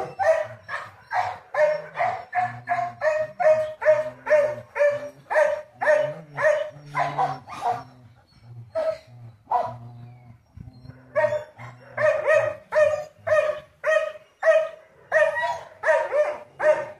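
Dog barking over and over, about two to three barks a second, breaking off for a few seconds about halfway through and then barking again.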